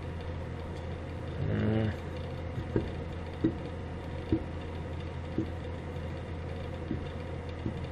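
About six light metallic clicks, roughly one a second, as the floating brake disc of a Lambretta TV175 disc-brake hub is rocked on its drive pins, over a steady low hum from a fan heater.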